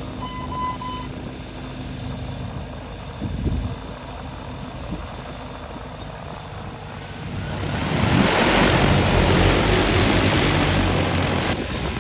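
A few short electronic beeps near the start. About seven seconds in, a DJI Agras T40 agricultural drone spins up its propellers, and a loud rushing rotor noise builds and holds.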